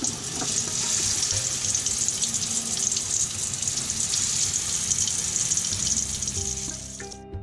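Pieces of spice-marinated fish sizzling and crackling steadily as they fry in hot oil. The sizzle cuts off suddenly near the end, leaving background music.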